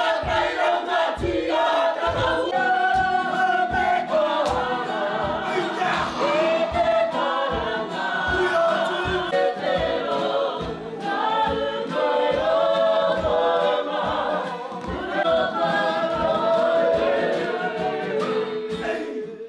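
Group of Māori performers singing together in chorus over a steady low beat about twice a second, part of a haka performance.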